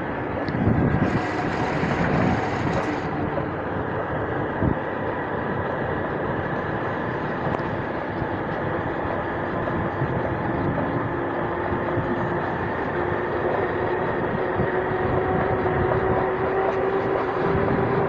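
A motor vehicle running steadily along a road, engine and road noise with a faint engine tone that rises slightly near the end. A brief hiss comes about a second in.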